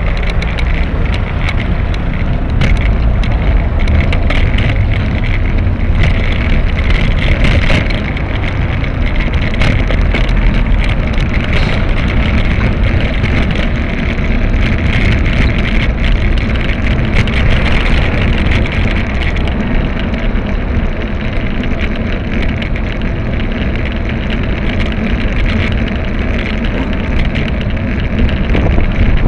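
Steady wind and road rumble on a bicycle-mounted camera while riding beside queued traffic, with car noise and many small clicks and rattles throughout.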